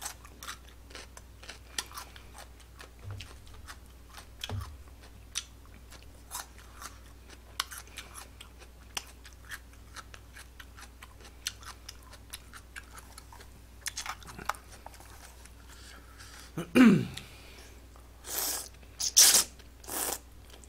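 Close-miked chewing with many small wet mouth clicks. Near the end comes a short falling vocal sound, then three loud slurps of jjamppong noodles.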